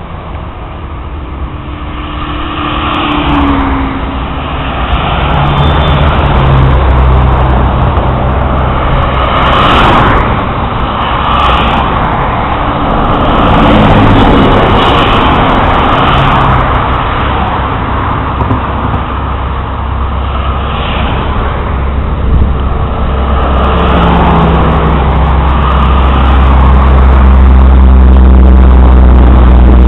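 Highway traffic: cars and trucks passing and turning close by, engines running and tyres rolling on asphalt, swelling and fading as each vehicle goes by. The traffic grows louder and deeper near the end.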